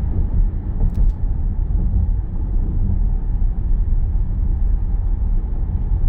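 Steady low rumble of a car driving at speed, heard from inside the cabin: tyre and road noise with the engine underneath, and a couple of faint clicks about a second in.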